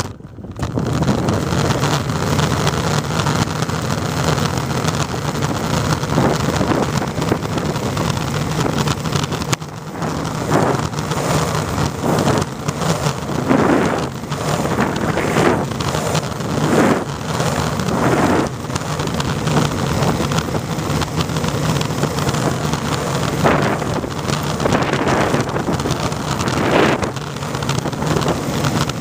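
Longboard wheels rolling over asphalt in a steady rumble, with wind buffeting the microphone. Louder swells come and go, several of them in the second half.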